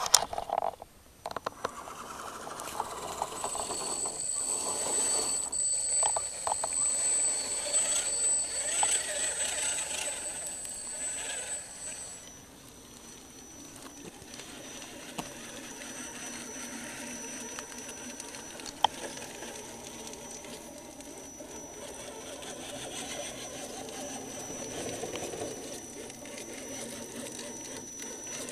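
Electric motor and gearbox of a scale RC crawler truck whining as it drives through mud and water. A high steady whine sits over a gear hum; about twelve seconds in it drops in level and its pitch shifts to a different steady tone.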